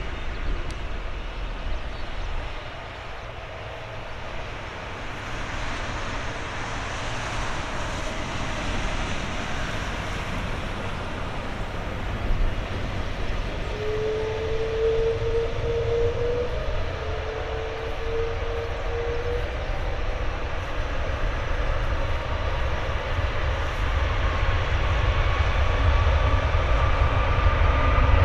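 Airbus A330-200's Rolls-Royce Trent 700 turbofans running as the airliner lines up, then spooling up for the takeoff roll: a whine rising slowly in pitch through the second half, with the low rumble growing louder toward the end.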